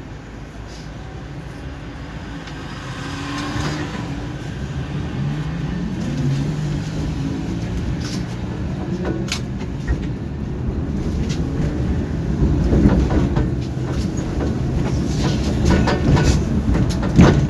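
Tram running on rails and gathering speed, getting louder, with a rising motor whine. A few sharp clicks from the wheels on the track come later.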